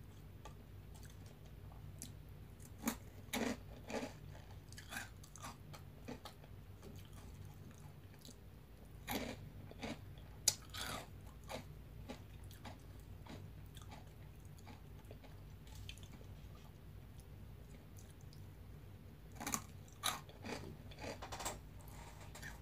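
Crisp veggie straws bitten and chewed close to the microphone: clusters of crunches about three seconds in, around ten seconds in and again near the end, over a steady low hum.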